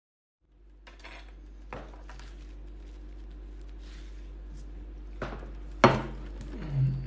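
Tableware handling: a metal fork rattled and clicked against the table and plate while it is taken out of a paper napkin, with rustling and a few sharp knocks, the loudest about six seconds in, over a steady low hum.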